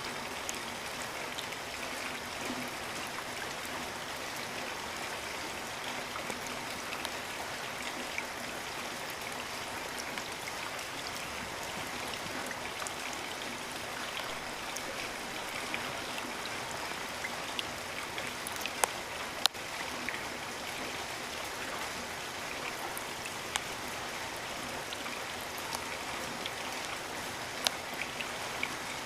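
Steady rain with individual drops ticking close by; a few louder drip clicks stand out a little past halfway and near the end.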